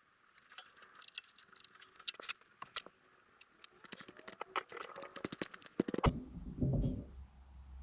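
Irregular light clicks and taps of hands handling tools and parts. A low steady rumble comes in about six seconds in.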